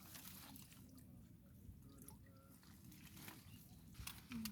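Near silence: faint outdoor background, with a soft click about four seconds in.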